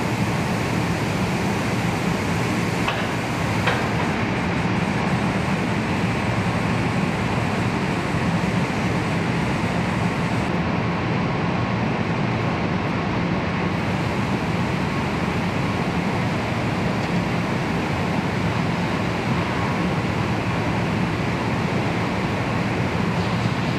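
Steady machinery noise of a car factory's paint-shop conveyor line: an even rush over a low hum, with two faint clicks about three seconds in.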